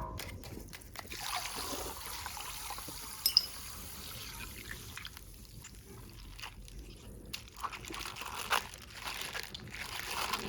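Coloured water trickling and splashing out of a punctured plastic bag, with scattered small clicks of the plastic and one sharp click about three seconds in.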